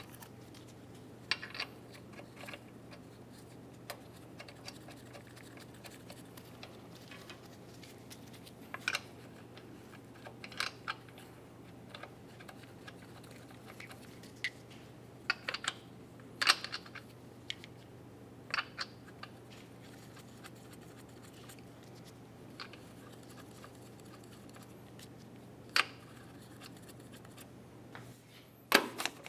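Lug nuts being threaded by hand onto a Nissan Titan's wheel studs: scattered light clicks and scrapes, about twenty spread through, over a faint steady low hum.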